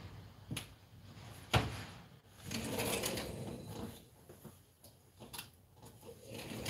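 A few sharp knocks and clatters, the loudest about a second and a half in, with a stretch of rustling and scraping in the middle.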